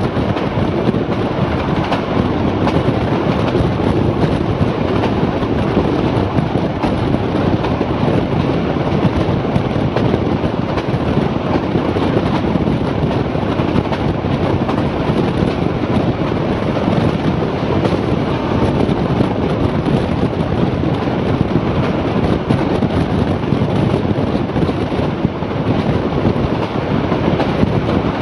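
Heritage passenger train running at speed, heard from an open carriage window: a steady rumble of wheels on the rails, with wind rushing past the microphone.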